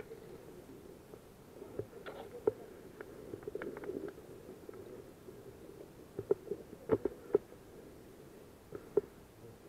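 Footsteps and rustling of a person walking over a pine-forest floor, with scattered sharp clicks and snaps, the loudest in a short cluster about seven seconds in.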